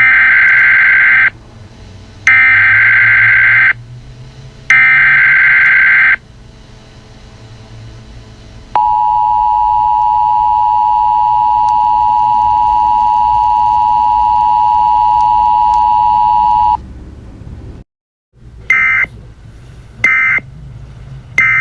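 Emergency Alert System SAME header: three loud screeching data-tone bursts about a second apart, followed by the steady two-tone EAS attention signal held for about eight seconds. After a short gap come three quick, shorter bursts of the same data tones. A low drone runs underneath throughout.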